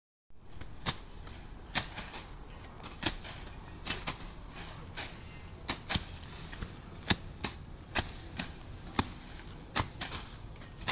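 Hand tools chopping into bush during land clearing: sharp, irregular strikes about one or two a second, some in quick pairs.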